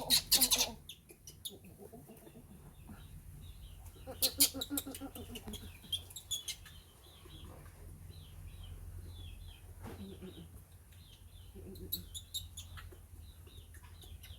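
Animal calls: a run of short, high-pitched chirps or peeps repeating all through, with a few louder, lower calls near the start, about four seconds in, and again around ten and twelve seconds.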